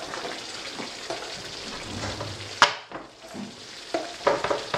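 Thick mole sauce simmering in a cast-iron skillet: a steady sizzle with scattered sharp pops as thick bubbles burst and spatter. The loudest pop comes about two and a half seconds in, and a few more come near the end.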